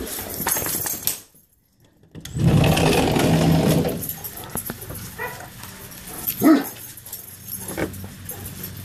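Great Danes giving a few short whines and yelps, the loudest about six seconds in, over scuffling and rustling. The sound cuts out for about a second near the start.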